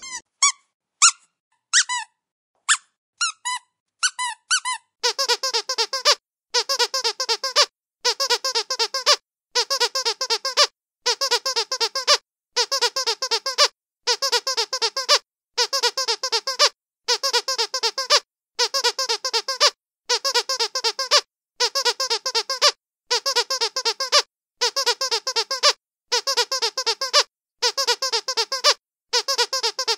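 Dog's squeaky toy squeezed over and over. First comes a scatter of short single squeaks, then, about five seconds in, steady bursts of quick squeaks, each about a second long, repeating roughly every one and a half seconds.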